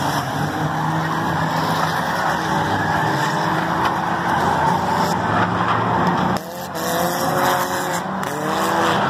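Several race cars' engines running hard on a short oval, with tires skidding on the asphalt. In the second half their engine notes rise and fall as cars pass.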